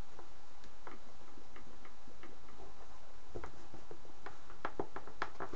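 Irregular small mechanical clicks and taps, growing louder and coming in a quick cluster near the end: the levers and moving parts of a ventriloquist dummy's head being worked.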